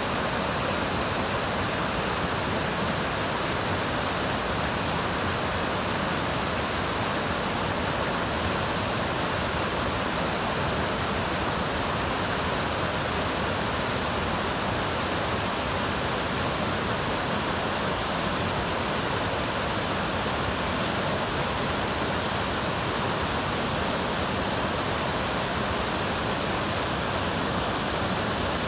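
South Fork Snoqualmie River rapids rushing over boulders, a steady, unbroken whitewater rush. The river is running high in flood after heavy rain.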